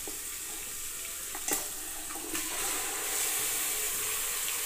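Goat head meat sizzling as it is tipped into hot mustard oil and fried masala in an aluminium pressure cooker, a steady frying hiss that swells a little after about two and a half seconds. A single short knock comes about a second and a half in.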